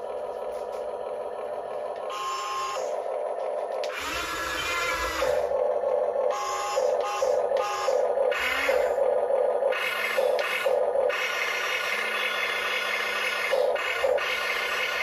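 Diecast Masters 1:24-scale RC Cat 336 excavator's small electric motors whining in short start-stop runs as the boom, stick and bucket move.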